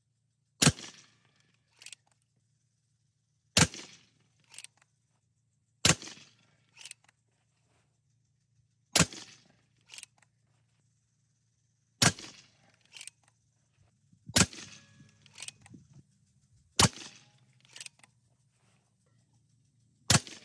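Evanix REX-P .357 PCP air pistol, set up as a carbine with the rifle's air cylinder, firing eight shots two to three seconds apart, each a sharp crack. Each shot is followed about a second later by a fainter crack.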